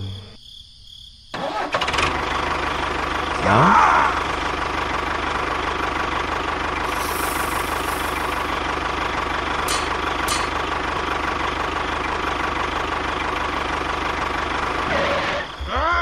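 A vehicle engine starts about a second in, revs up briefly with a rising pitch, then runs steadily until shortly before the end.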